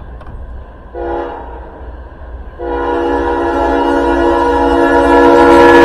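Air horn of CSX locomotive 1776 sounding for a grade crossing: a blast about a second in, then a long blast from about two and a half seconds in that grows louder as the train approaches. A steady low rumble runs underneath.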